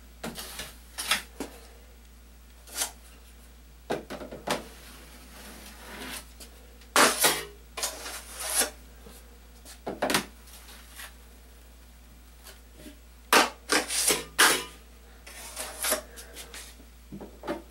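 Steel 8-inch drywall knife scraping wet joint compound along metal corner bead and across the mud hawk. It comes as a string of short, irregular scrapes, the loudest ones bunched about seven and fourteen seconds in.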